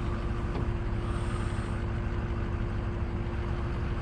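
Heavy engine idling steadily, with a steady whine held over the low engine sound.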